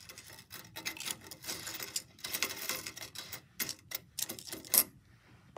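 Gold-tone metal filigree leaf necklace clinking and clicking as it is pushed into place by hand on a countertop: a run of quick, light, uneven clicks, the sharpest one near the end, stopping about five seconds in.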